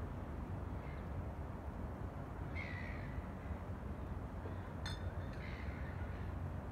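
A few short bird calls, caw-like, about three seconds apart, over a steady low rumble, with one sharp click about five seconds in.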